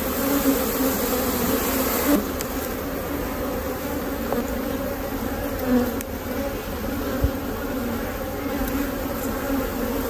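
Steady loud hum of an open honeybee colony, queenless and agitated: the bees are defensive and trying to sting. In the first two seconds a smoker's puff hisses over the hum, and there is one soft knock about seven seconds in.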